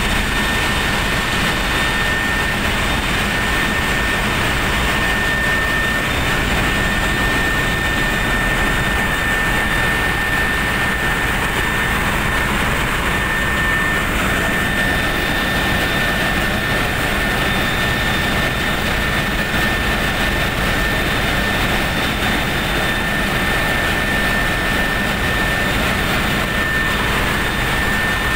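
Steady, loud drone of running machinery with a constant high-pitched whine over it: the background noise of a ship's engine room with engines running.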